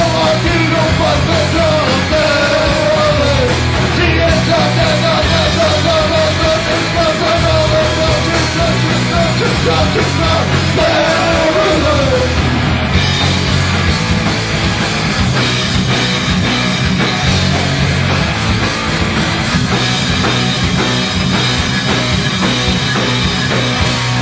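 A live heavy rock band playing loud and distorted: electric guitar, bass guitar and drums, with shouted vocals over the first half.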